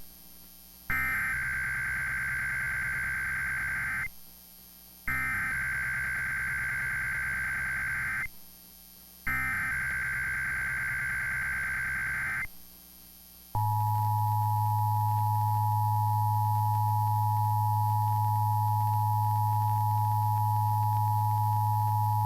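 Emergency Alert System SAME header broadcast over FM radio: three identical bursts of shrill warbling data tones, each about three seconds long with a second's gap between them. About halfway through, the steady two-tone EAS attention signal starts and holds, with a low hum under it.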